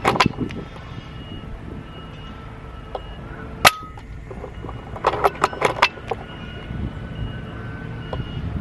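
A single air rifle shot about three and a half seconds in, sharp and short, then a quick run of small clicks and knocks around five to six seconds in.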